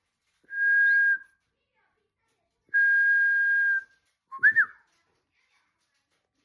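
Bird whistling: two long, level whistled notes, then a short low note and a quick rising-and-falling one.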